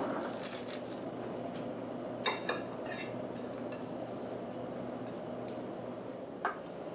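Serrated knife sawing through the crust of a baked baguette on a wooden cutting board, with a metal server clinking against a ceramic plate a few times, most sharply about two and a half seconds in and again near the end.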